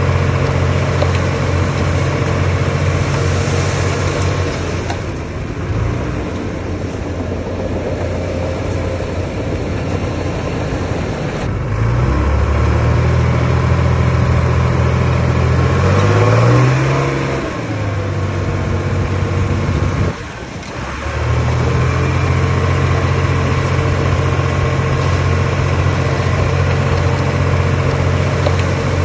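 Diesel engine of earthmoving machinery working. It runs steadily, eases off about five seconds in, revs up with rising pitch between about twelve and seventeen seconds, dips briefly around twenty seconds, then settles back to steady running.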